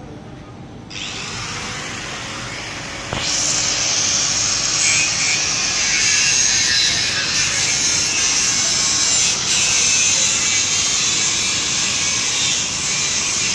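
Suntech roll-to-roll fabric relaxing machine running with a steady hiss. The hiss steps up about a second in, then again with a click about three seconds in, and holds.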